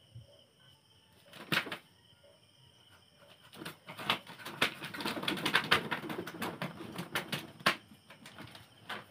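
A chicken flapping its wings hard in flurries of rapid wingbeats as it struggles while being slaughtered. There is a short burst about a second and a half in, then a longer, louder flurry from about three and a half seconds to eight.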